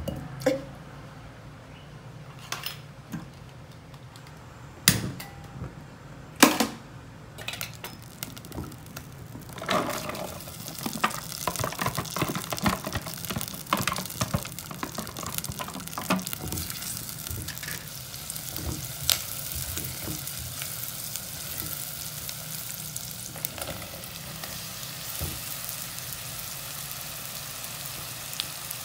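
A few sharp knocks in the first several seconds, then from about eight seconds in, a steady sizzle with many small crackles as chopped onion and then sliced mushrooms fry in butter and oil in a ceramic pot, with stirring from a silicone spatula near the end.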